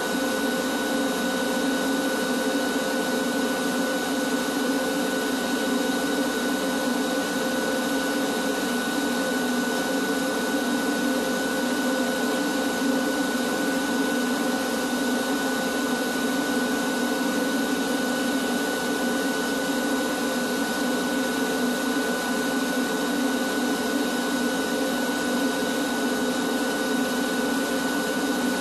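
Canister vacuum cleaner running steadily with a constant whine, drawing through a long hose as the ceiling is vacuumed.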